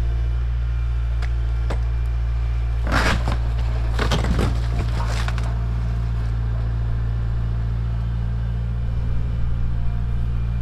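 Kubota L4701 tractor's diesel engine running steadily as it pushes over a wooden shed. About three seconds in, the shed's timbers crack and splinter in a quick run of snaps lasting a couple of seconds.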